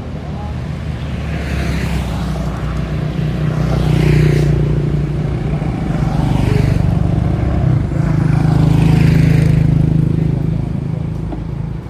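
A motor vehicle engine running steadily, with about four vehicles swelling up and fading away as they pass by.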